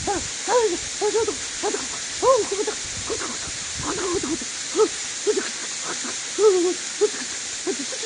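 A woman's short wordless 'hoo' sounds, repeated irregularly two or three times a second, each rising and falling in pitch. They are shivering whimpers from the cold, soaking wet just after an ice-water plunge.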